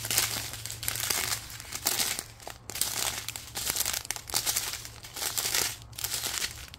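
Strip of small sealed plastic bags of diamond-painting drills crinkling and rustling as it is handled and turned over, in uneven bursts.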